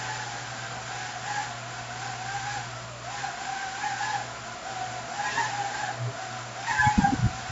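Propeller motors of a 3-DOF laboratory helicopter rig whirring with a steady whine whose pitch keeps wavering up and down as the thrust is adjusted, over a low hum. A brief louder low knock comes near the end.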